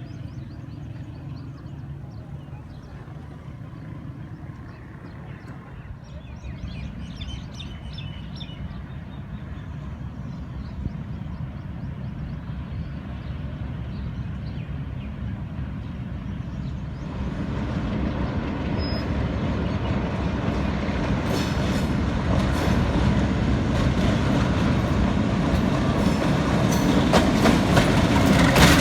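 Millat Express passenger train hauled by a Hitachi diesel locomotive drawing near, its low rumble growing steadily louder over the last ten seconds or so. Wheels clack over the rail joints repeatedly near the end.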